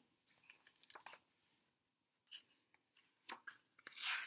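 Near silence with a few faint clicks, then light rustling and ticks of a hardcover picture book being handled near the end.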